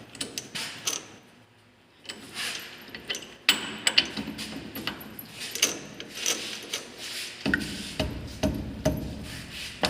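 Sharp metal clicks and knocks of a spanner working the steel tool post and tool holder bolts of a lathe as they are hand-tightened, with a short pause about a second in.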